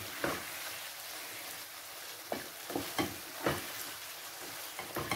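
Potatoes in oil and masala sizzling steadily in a pan while a wooden spoon stirs them, with several short scrapes and knocks of the spoon against the pan.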